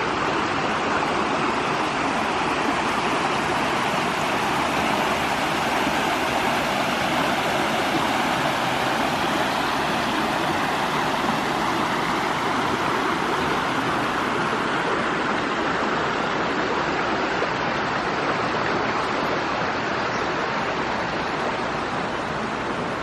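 A steady rushing noise, even and unbroken throughout.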